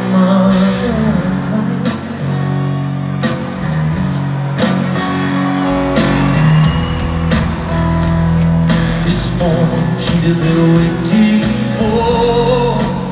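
Rock band playing live through a big PA: electric guitars, bass and drums with a singer's voice on top. The deep bass and kick drum come in fuller about six seconds in.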